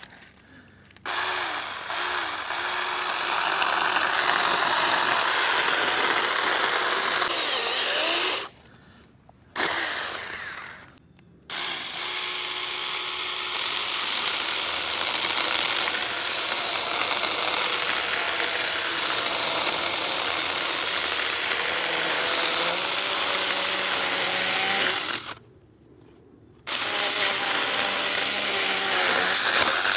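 Saker 20 V cordless mini chainsaw with a 4-inch bar running in long bursts while cutting through branches, its electric motor note shifting under load. It stops briefly three times.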